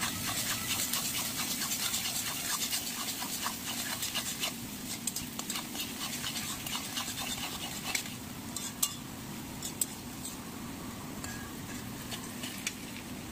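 A metal spatula stirring and scraping chopped vegetables around a metal kadai, making repeated scrapes and clicks against the pan over a steady low hum. The scrapes come thickly at first and grow sparser in the second half.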